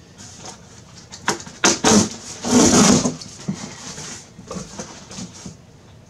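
Cardboard shipping carton being handled: a few sharp knocks and flap snaps, then, about halfway through, a loud scraping rustle as an inner cardboard piece slides out against the box, followed by lighter rustling.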